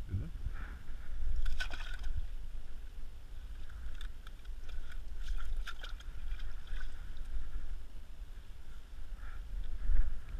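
Low rumble of wind and handling on a body-worn camera's microphone, with scattered short rustles and scrapes from hands and clothing moving over snow and ice.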